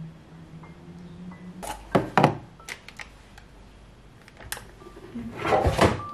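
Kitchen-counter handling sounds: a few sharp knocks of things being picked up and set down about two seconds in, scattered clicks, then a plastic packet rustling and items clattering near the end.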